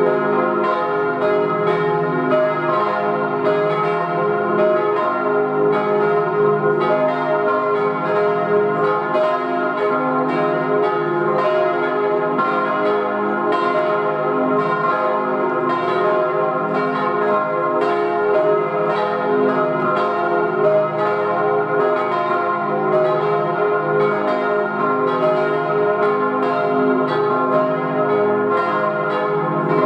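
Church bells cast in 1897 by the H. Rüetschi foundry of Aarau, several swinging together in a continuous peal, their strokes overlapping without a pause.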